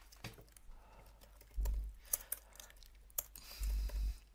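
Computer keyboard typing: a few scattered key clicks. Two short, low, muffled rumbles, one about one and a half seconds in and one near the end, are louder than the clicks.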